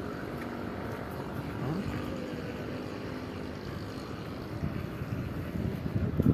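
Steady low outdoor rumble with a short rising tone about two seconds in, and a few louder knocks near the end.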